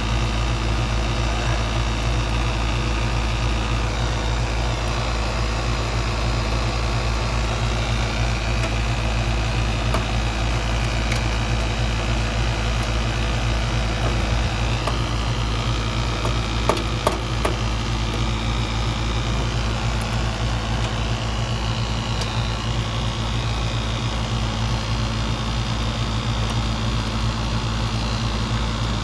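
Steady low machine hum, with a few sharp metallic clicks about halfway through as a wrench turns open the condensing unit's front-seated king valve so the gauges can read refrigerant pressure.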